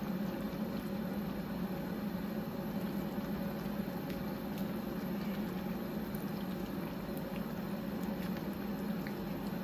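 Pot of cabbage stew bubbling steadily on the stove, with a few faint ticks.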